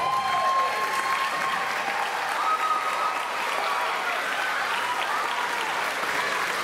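Large crowd of students applauding in a school gymnasium, with a few voices cheering over the clapping.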